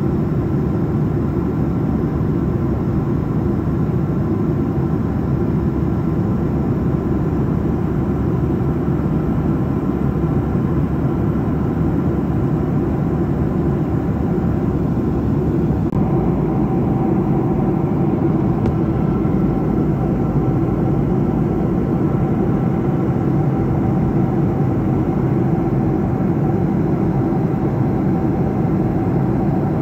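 Jet airliner cabin noise heard at a window seat in cruise: the steady roar of the engines and rushing air, with a faint steady hum running through it. The low rumble shifts slightly about halfway through.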